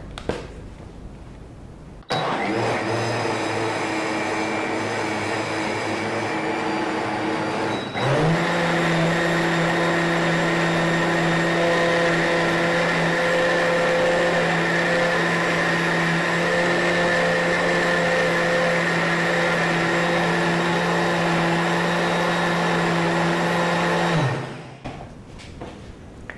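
OmniBlend high-speed blender running with soaked almonds and water, blending them into almond milk. The motor starts about two seconds in, jumps to a higher, louder speed about six seconds later, runs steadily and then winds down to a stop near the end.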